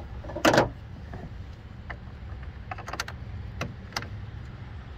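The spring-loaded clamp of a jump starter's red jumper cable being clipped onto a truck battery's positive terminal. There is a louder knock about half a second in, then a run of short, sharp clicks of metal on metal, all over a steady low hum.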